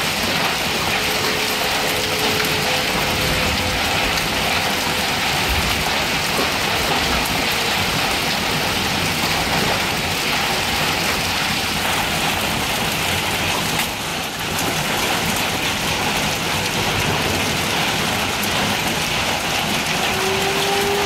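Small hail and heavy rain falling in a steady, dense hiss of stones and drops striking pavement and grass.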